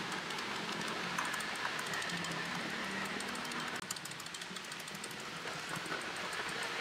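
Steady hum of street traffic, with faint light clinks of a metal spoon against glassware as a drink is stirred.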